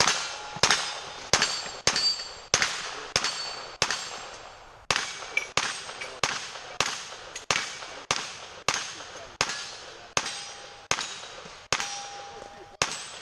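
Rapid competition gunfire, about twenty shots in a steady cadence of one every half to three-quarter second with a brief pause about four seconds in; several shots are followed by a short metallic ring, typical of steel targets being hit.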